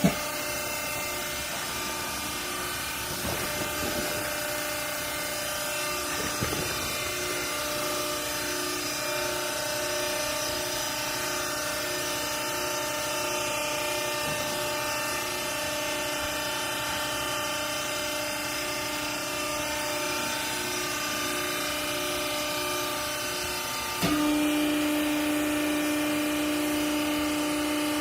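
Hydraulic baler's power unit running with a steady motor-and-pump hum. About 24 s in it jumps louder and the hum grows stronger, as when the pump comes under load.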